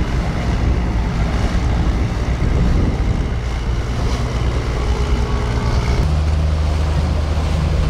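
A boat's engine running with a steady hum under a haze of wind and water noise. The engine note shifts and holds stronger about six seconds in.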